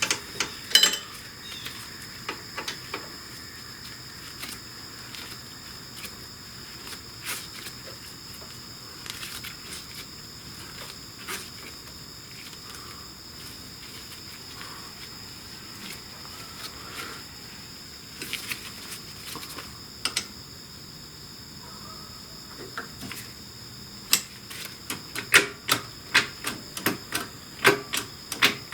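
Irregular sharp metallic clicks and taps of hand tools working on the motorcycle's shift lever, with a quick run of clicks over the last few seconds. A steady high-pitched tone sits underneath.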